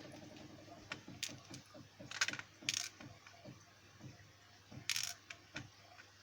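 Small metal lock pins and springs from a disassembled Lockwood 356 padlock clicking and tapping as they are handled on a hard surface: a handful of sharp light clicks, the loudest about two and five seconds in, over fainter ticking.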